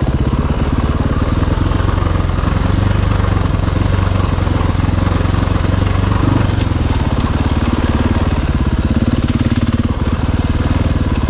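Dirt bike engine running steadily while riding along a trail.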